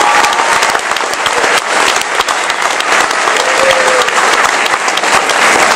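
Audience applauding, with a single cheer rising above the clapping about three and a half seconds in.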